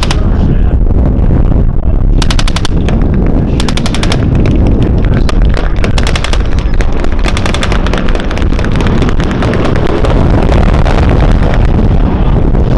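Jeep-mounted machine gun firing blanks in several short rapid bursts, most of them in the first eight seconds or so, over a loud, continuous low rumble.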